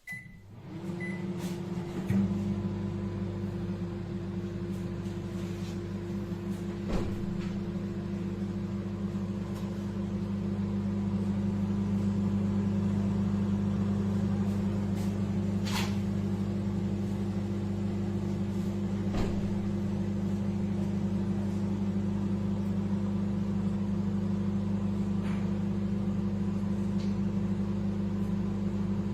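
Candy Smart CMG2071DS microwave oven starting up with a couple of short beeps, then running with a steady low hum and fan noise, with a few light clicks along the way.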